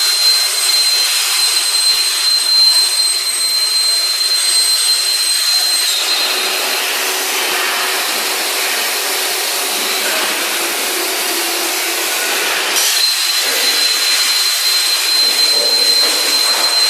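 Industrial metal-cutting machine running with a steady loud hiss and a thin high whine. From about six seconds in the whine drops out and the sound fills lower; near thirteen seconds it changes back and the whine returns.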